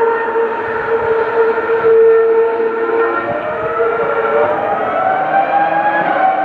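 Ferrari racing car engines at high revs heard from afar: one high engine note held for a couple of seconds, then sliding down as the car lifts, with a second engine note rising over it near the end.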